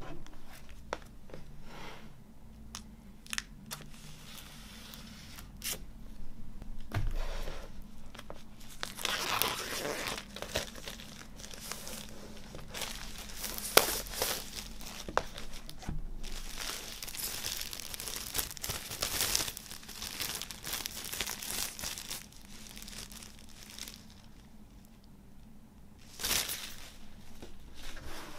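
Clear plastic shrink-wrap being torn and peeled off a vinyl LP sleeve, crinkling and crackling. A few sharp clicks come in the first seconds, the crinkling is densest through the middle, and there is one more short loud burst of it near the end.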